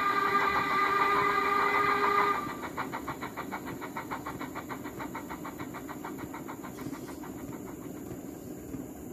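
Locoman steam sound project on a Zimo decoder, played through a small speaker in the tender of a Hornby Stanier 8F model: a whistle held for about two seconds over rapid, even exhaust beats. The whistle stops sharply and the beats carry on alone, more quietly.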